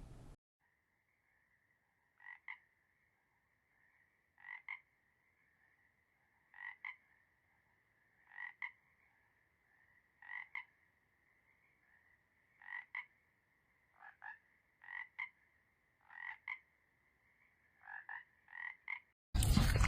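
A frog calling in short paired croaks about every two seconds, coming faster toward the end, over a steady high-pitched drone. Near the end a much louder rush of noise cuts in abruptly.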